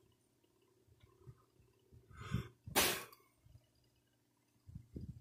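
A quick breath drawn in, then one short, forceful burst of breath about two and a half seconds in, the loudest sound here; faint light taps of a metal pick on the pen's metal parts come before and after it.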